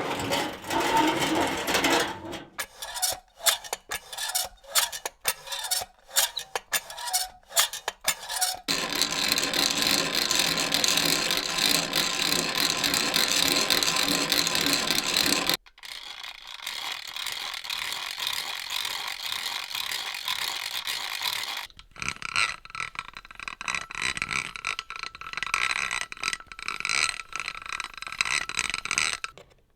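A series of small mechanisms worked one after another: a run of sharp ratcheting clicks, then a steady mechanical whirring that stops suddenly, then a quieter steady run, then a rapid rattling clatter.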